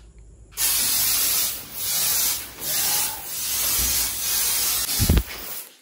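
Aerosol party snow-spray cans hissing as they are sprayed in several long bursts, starting suddenly about half a second in.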